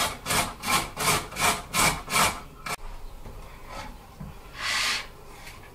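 Carrot being grated on a stainless-steel box grater: quick, even rasping strokes, about three a second, that stop a little under three seconds in. A single softer scrape follows near the end.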